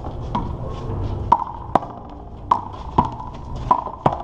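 A rubber handball bouncing and smacking on the concrete court and wall: about seven sharp, irregular hits, several with a short ring.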